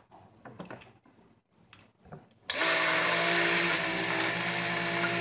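A stick blender switches on about halfway through and runs steadily with a motor hum, blending oils and lye into cold-process soap batter toward a light trace. A few light knocks come before it starts.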